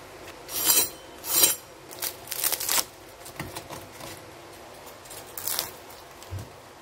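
A knife crunching through a crisp, pan-fried tortilla pizza on a wooden cutting board, in several short crackling strokes. A soft knock near the end as the blade meets the board.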